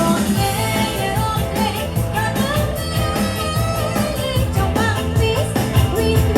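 Live Khmer twist song: a woman singing over a band with a steady, upbeat drum beat.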